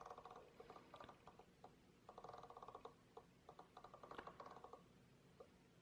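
Faint clicking of the Casio CT-S300's rotary data dial spun by a finger, its detents ticking in rapid runs: three bursts as the tone list scrolls.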